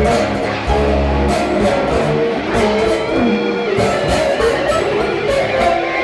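Instrumental free improvisation: plucked strings over a deep bass, many short shifting notes, with sharp percussive clicks throughout. A low bass note is held for about the first second.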